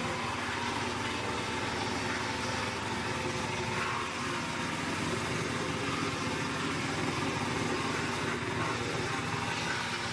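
Mobile wood chipper's diesel engine running steadily under an even machine noise.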